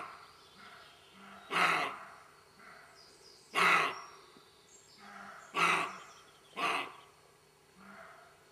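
Roe deer barking: four loud, short barks, about two seconds apart and the last two about a second apart, with fainter sounds in the gaps between.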